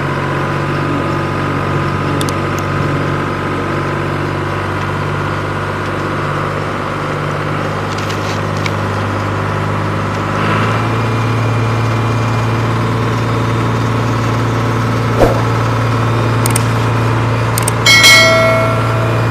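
Steady engine-like drone that shifts to a lower, louder hum about ten seconds in, with a sharp click later and a short ringing clang near the end.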